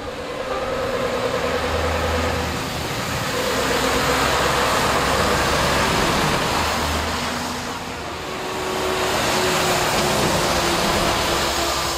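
Heavy Scania show trucks driving past one after another, their diesel engines running loud through the exhausts, with tyres hissing on the wet road. The sound swells as each truck passes and dips briefly about eight seconds in before the next one comes by.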